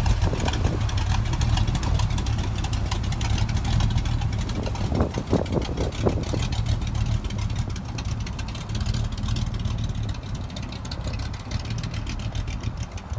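Lifted Ford pickup's 460 V8 running low and steady at slow speed, growing fainter as the truck pulls away across gravel.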